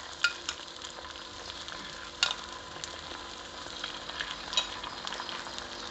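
Beaten egg and oil sizzling steadily in the hot compartments of a paniyaram pan, with a few short sharp clicks, the loudest a little over two seconds in.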